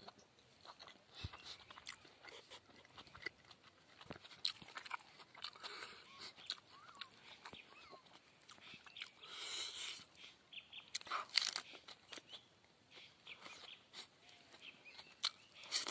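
A person chewing and crunching mouthfuls of rice and grilled pork close to the microphone, with irregular soft clicks and rustles as fingers mix the food on a banana leaf.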